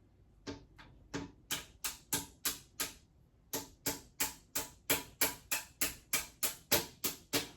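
Repeated hammer taps during flat-pack dresser assembly, very regular at about three strikes a second, with a short break about three seconds in before the tapping resumes.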